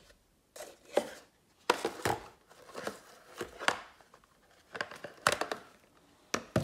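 About ten sharp, irregular plastic clicks and knocks from the white plastic body and front cover of an Envirovent Silent 100 bathroom extractor fan. They come as the cover's release dot is pressed and the front cover is worked loose by hand. The fan is not running.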